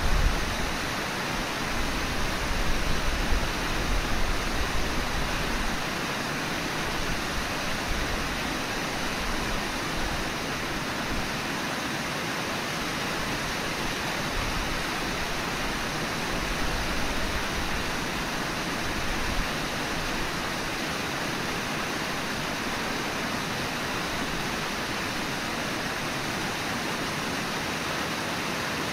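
Steady rush of flowing river water, an even, unbroken noise, with low rumbles during the first several seconds.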